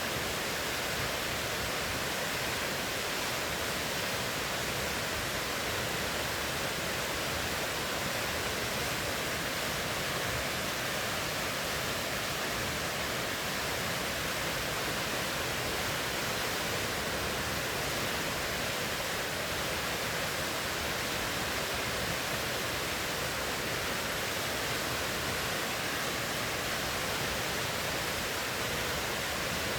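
River water rushing steadily, an even, unbroken hiss of flowing water.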